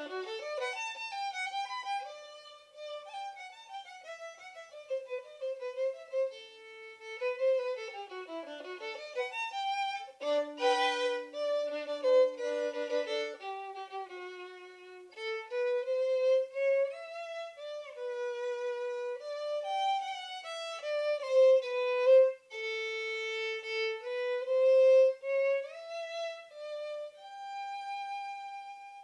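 Unaccompanied violin playing a slow melody with sliding notes between pitches, two strings sounding together for a few seconds about ten seconds in, and ending on a long held note.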